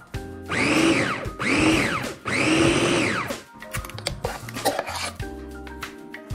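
Electric food chopper run in three short pulses, its motor pitch rising then falling in each, grinding pear, apple, onion, garlic and ginger into a puree.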